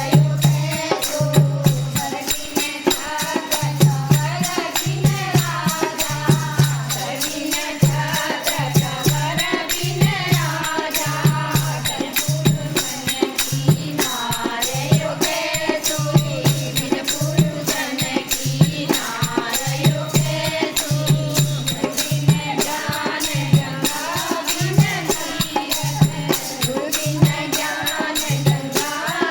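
A group singing a Hindu devotional bhajan at a kirtan, with a steady, fast beat of rattling, jingling hand percussion.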